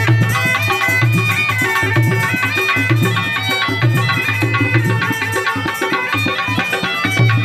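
A been (pungi, the snake charmer's gourd-and-reed pipe) playing a folk tune: a reedy melody moving in steps over a steady drone, with a drum keeping a rhythm underneath.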